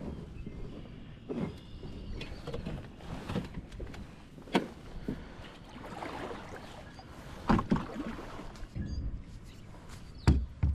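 Fishing kayak on the water: scattered knocks and bumps against the hull, the loudest about four and a half, seven and a half and ten seconds in, over wind rumbling on the microphone.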